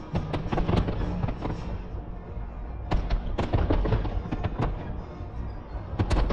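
Aerial fireworks bursting: volleys of rapid sharp bangs and crackles over a low rumble, at the start, about three seconds in, and again near the end.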